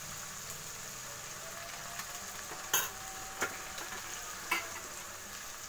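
Oil sizzling steadily in a kadhai as garlic and green chilli paste fry with bay leaves and freshly added turmeric. Three sharp clicks come about halfway through.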